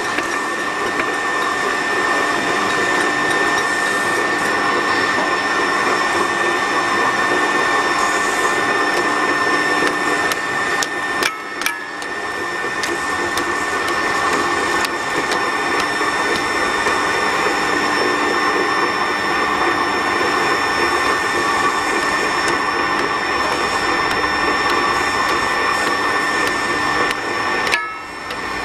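Electric winch running steadily, its motor and gear drive giving a constant whine as the drum winds on steel wire rope. The run drops out briefly about 11 seconds in and again near the end.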